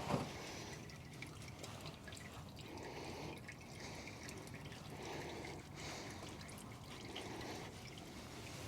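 Engine oil faintly dripping and trickling into a drain pan.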